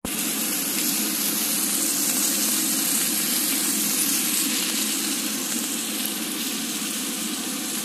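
Thick top sirloin steak sizzling steadily as it sears in a very hot, smoking pan.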